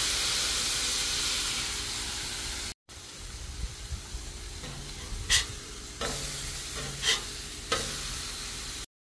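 Beef smash-burger patties sizzling on a hot flat-top griddle, a steady loud hiss. After a brief break the sizzle is quieter, with a few sharp clinks of a metal spatula against the griddle toward the end.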